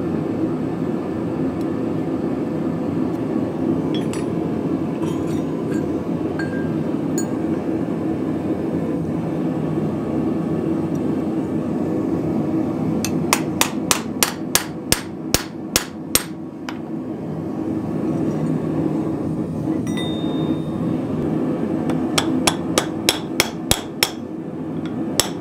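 Small hand hammer striking hot iron on a small Viking-style stake anvil set in a stump, forging a nail. There are two quick runs of light, ringing blows, about ten blows in the middle and about eight near the end, with a single blow between them, over a steady low rumble.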